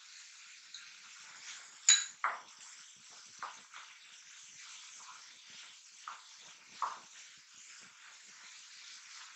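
Vegetables frying in a non-stick kadai with a faint, steady sizzle while a wooden spatula stirs them. There is a sharp, ringing clink about two seconds in, then several softer knocks and scrapes of the spatula against the pan.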